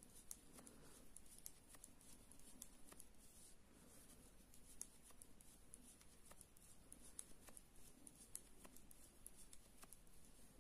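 Faint, irregular light clicks and rustles of metal knitting needles and yarn as garter stitches are knitted, a few clicks a second over near-silent room tone.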